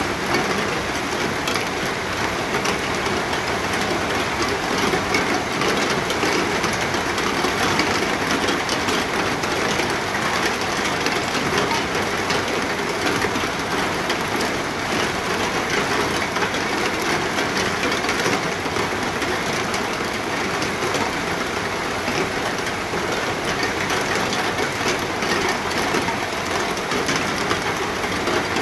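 Steady, continuous rain falling, a dense even patter with no lulls.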